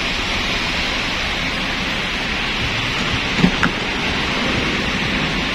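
Steady hissing noise like rain, with one brief click about three and a half seconds in.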